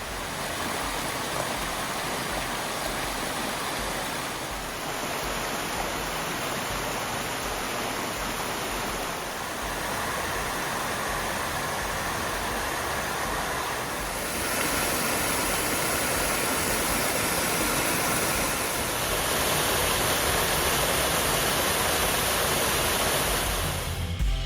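Steady rush of water pouring down a small rock cascade in a creek running high after heavy rain. The roar shifts in level a few times, growing louder about halfway through.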